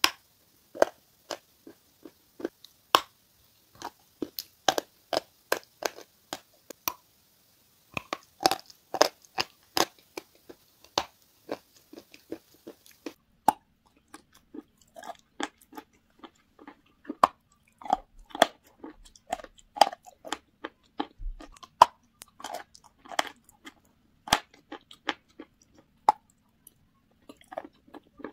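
Close-up crunching and chewing of pressed grey chalk, some chunks coated in a thick, creamy chalk paste. Sharp crunches come in clusters of several a second, with short pauses between bites.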